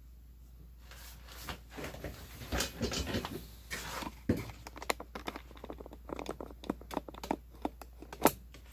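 Small disassembled metal gun parts being handled and set down on a surface: an irregular string of light clicks, knocks and scraping rustles starting about a second in, with a sharper click near the end.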